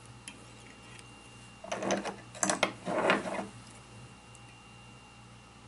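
Hands handling fly-tying materials at the vise: three short rasping, rustling bursts about two to three and a half seconds in, over a faint steady hum.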